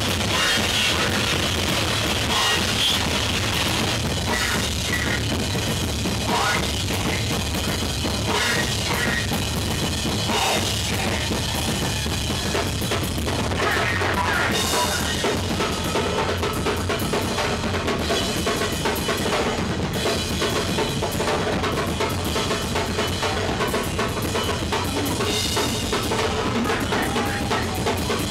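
Live noise-rock drums-and-bass duo playing loud: fast, dense drum-kit hits with bass drum under a heavily distorted bass guitar, the sound saturated and continuous.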